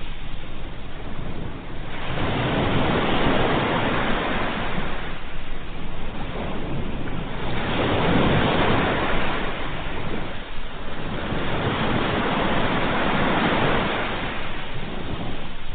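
Sea waves breaking in steady surf, rising and falling in three long surges.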